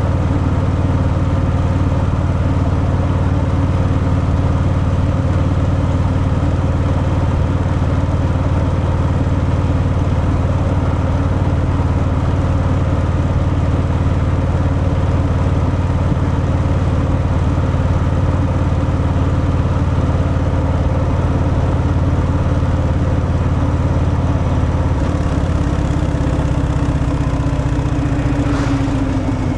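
Harley-Davidson Fat Boy's V-twin engine running steadily through its stock exhaust while riding. Near the end its pitch falls and it gets a little quieter as the bike slows.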